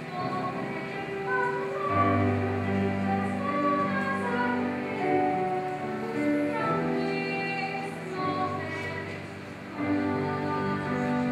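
Background music with sustained melodic notes over a low bass line.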